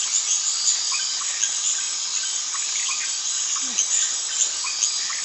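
Night insect chorus of crickets: a dense, steady high-pitched trilling, with many short chirps and clicks scattered through it.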